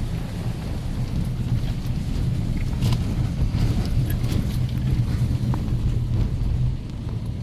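Vehicle driving slowly along a rough dirt track, heard from inside the cab: a steady low engine and road rumble, with a few short knocks along the way.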